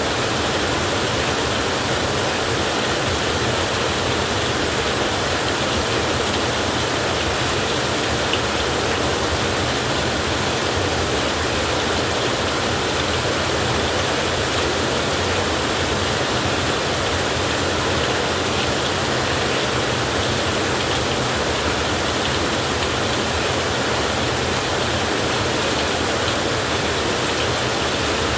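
Heavy rain falling in a steady, even hiss, with no thunder.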